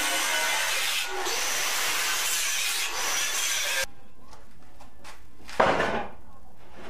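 Angle grinder cutting into steel plate, a loud steady hiss that stops abruptly a little under four seconds in. About a second and a half later comes a single loud clunk.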